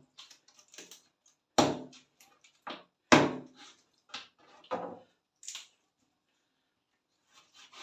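Knife striking a cutting board as food is chopped by hand: irregular knocks, two loud ones about a second and a half apart early on and several lighter ones after, stopping about two-thirds of the way through.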